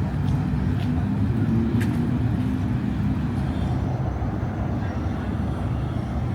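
Steady low rumble of city road traffic, with engines humming and no break in the noise.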